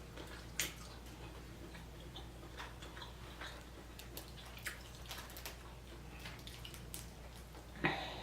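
Faint scattered clicks and small wet smacks of seafood-boil crawfish and crab being eaten by hand, close to the microphone. There is a louder wet sound near the end, over a low steady hum.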